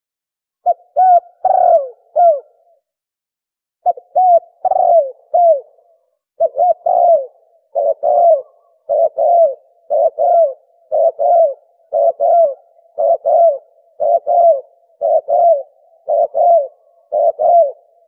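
Spotted dove (tekukur) cooing: short falling coos grouped in phrases and repeated over and over, about two coos a second, after a brief pause near the start. It is a recorded call played as a caller to lure doves for hunting.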